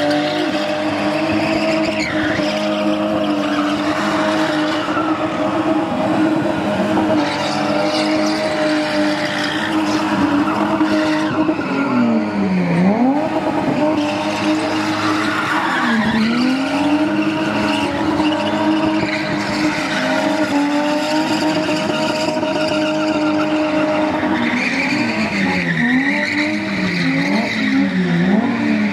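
Spinning cars' engines held at high revs with tyres squealing and skidding on the tarmac. The revs drop and pick up twice about halfway through, and bounce up and down quickly near the end.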